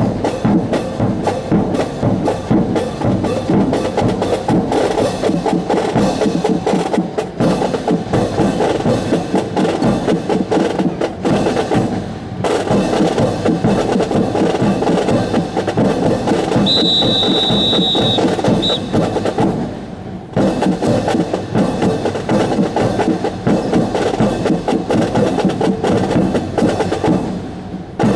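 Drill team's rifle drill to a marching drum cadence: steady rhythmic drumming with sharp wooden clacks of rifles being handled. A high steady whistle tone is held for about two seconds just past the middle, followed by a short pip, and the rhythm breaks off briefly twice.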